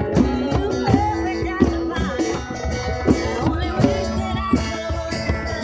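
Live music: a woman singing into a microphone over a strummed acoustic guitar.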